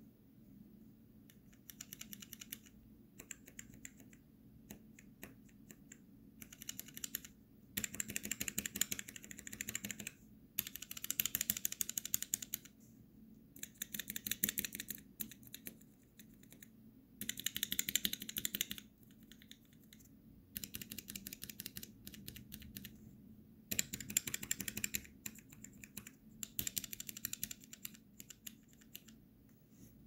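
Bare Kailh Choc low-profile keyboard switches in a clear acrylic sampler frame, pressed rapidly in bursts of fast clicks a second or two long, with short pauses between them.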